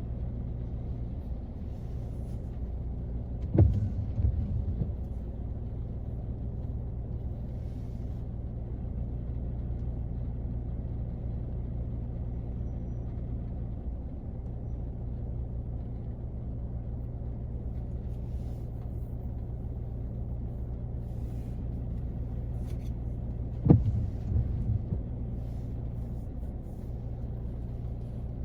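Rain heard from inside a car's cabin as a steady low rumble, with two sudden loud thumps about twenty seconds apart.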